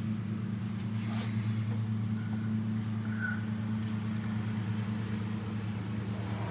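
Window air conditioner compressor of a Fedders Weather Wheel humming steadily on mains power. The compressor is running, but the discharge line stays cold, a fault that is still being diagnosed.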